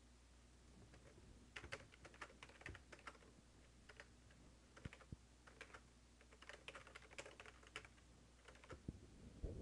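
Faint computer keyboard typing: short bursts of keystrokes from about a second and a half in until near the end.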